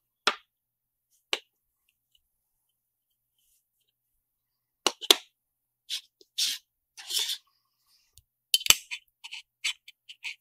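Small magnesium-aluminium SSD enclosure parts handled by hand: a few brief, separate clicks and light knocks with silence between, then a quick run of sharp clicks and taps near the end as the metal top cover is fitted onto the case base.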